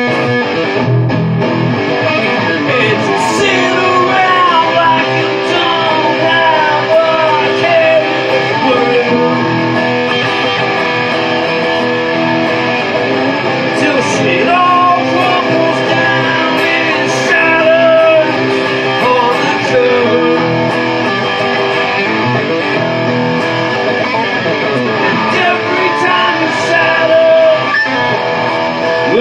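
Rock band playing a song, carried by guitar.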